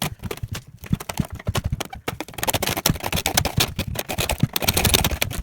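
A saw cutting into a computer motherboard: a rapid, irregular run of scratchy rasping strokes, denser and louder from about two seconds in.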